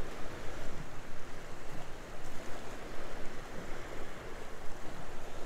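Water sloshing and wind on the microphone aboard a small boat, with a low steady hum underneath.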